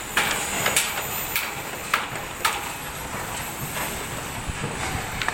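Construction site noise: a run of sharp knocks about every half second for the first two and a half seconds, then fewer, over a steady background of machinery.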